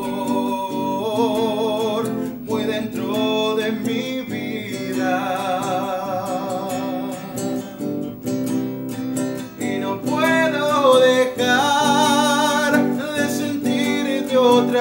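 A man singing a Christian song in Spanish, holding notes with vibrato, while accompanying himself on a classical guitar.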